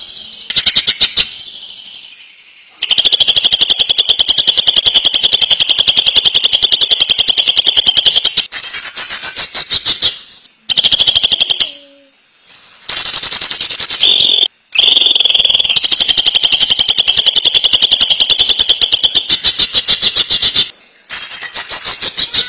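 Green leafbird (cucak ijo) singing in the rapid 'ngentrok' style: long, machine-gun-fast runs of repeated high notes, two of them several seconds long, with shorter bursts between brief pauses.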